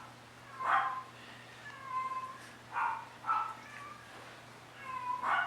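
Mi-Ki puppies whining and yipping: a run of short high-pitched cries, about one every second, some brief and some drawn out into a thin whine.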